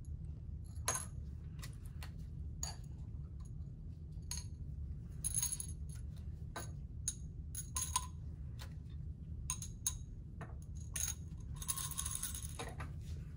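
Small brass pieces dropped one at a time into a glass graduated cylinder, each landing with a sharp clink and a short glassy ring, with a longer rattle near the end as several slide down together. A steady low hum runs underneath.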